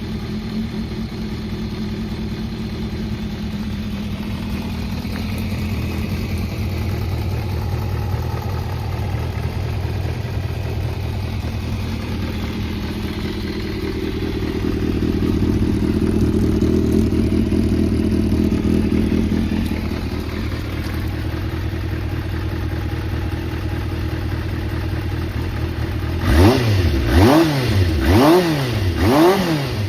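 Kawasaki ZRX400's inline-four engine idling steadily, its speed rising a little for a few seconds midway and then settling again. Near the end it is revved in quick throttle blips, about one a second. The seller describes the engine as running well with no abnormal noises.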